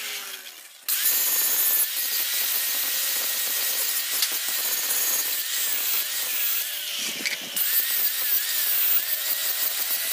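Angle grinder with an abrasive disc grinding the edge of a steel strip cut from a car spring, its motor whine wavering as the disc is pressed on and moved along the bar. The sound fades briefly just after the start, then the grinding comes back suddenly at full level and stays steady.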